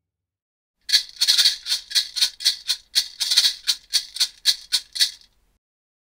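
A pair of maracas shaken in a steady rhythm, about four shakes a second, in two phrases with a brief break in the middle; the shaking starts about a second in and stops near the end.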